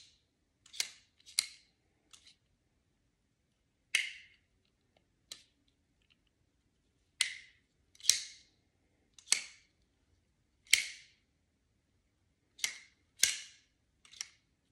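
Milwaukee Fastback folding utility knife being flipped open and shut over and over: about ten sharp snaps, each with a short ring, some in quick pairs half a second apart. The blade hits its stop but bounces back rather than locking in.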